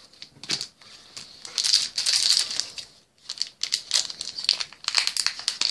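Trading cards being slid off a stack and laid down one by one on a wooden table: quick dry slaps and slides in clusters, with a brief pause about three seconds in.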